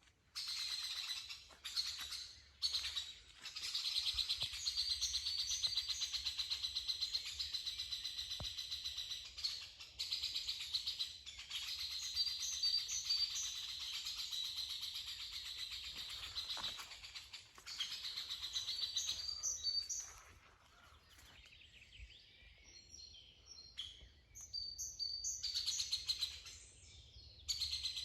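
Songbirds chirping and trilling in quick, overlapping calls, with a quieter spell about two-thirds of the way through.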